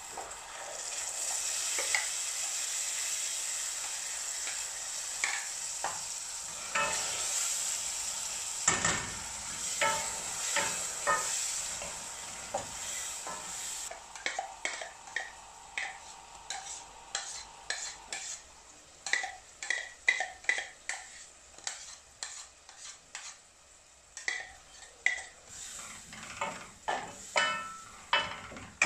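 Ground coconut paste sizzling in hot oil in a stainless steel kadai while a wooden spatula stirs and scrapes it. The sizzle fades about halfway through, leaving the spatula's repeated scrapes and taps against the steel pan, about two a second.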